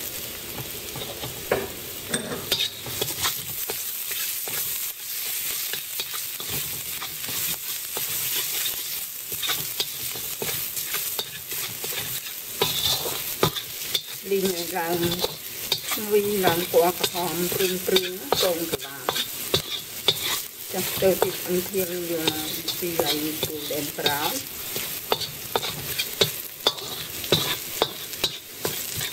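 Minced garlic sizzling steadily in hot oil in a wok, while a metal spatula scrapes and taps against the wok as it stirs.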